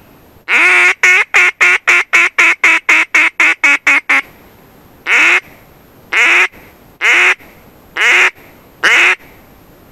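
Duck call blown in a quacking sequence at a passing flock: one long quack, then a quick run of about fifteen short quacks, then five single quacks about a second apart.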